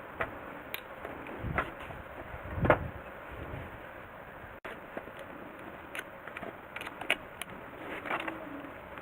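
Scattered light clicks and knocks, with one louder low thump about a third of the way in, over a steady background hiss.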